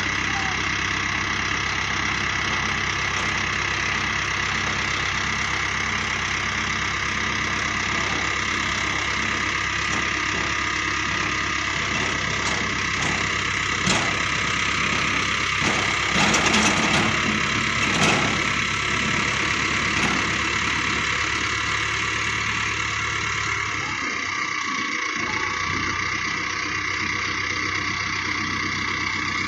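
Mahindra Arjun Novo 605 DI tractor's diesel engine running steadily with its tipping trailer raised to unload soil. There are a few brief knocks and rattles about halfway through.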